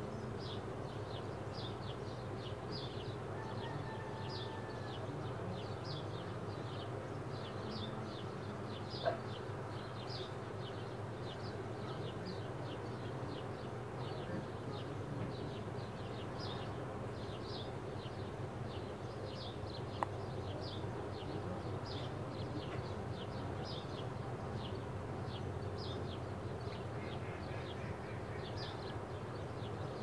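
Live featherless nestling bird peeping: short high peeps about once or twice a second, over a steady low hum, with two faint clicks.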